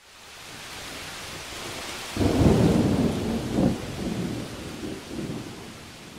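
Thunderstorm sound effect: a steady rain hiss fades in, then thunder breaks about two seconds in and rumbles in a few swells, dying away.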